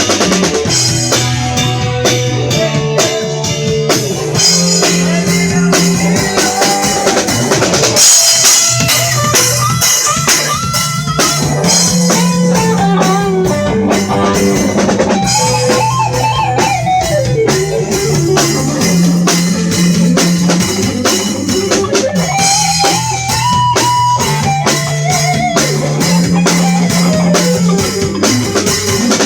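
Rock band playing live: drum kit keeping a steady beat, a repeating bass line and guitar, with a lead melody that slides up and down in pitch.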